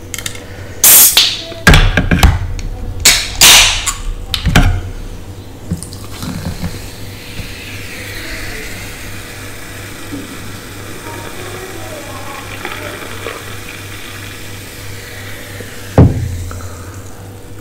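A can of Pepsi hissing and fizzing in several loud bursts over the first four seconds, then a fainter steady hiss. A single thump about sixteen seconds in.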